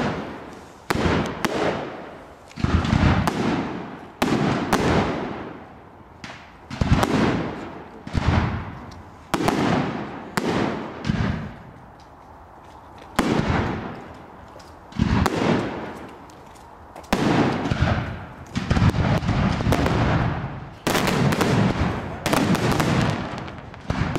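Aerial firework shells bursting one after another. Each burst is a sharp bang followed by a fading rumble, about one every second or two, with a quicker run of bangs near the end.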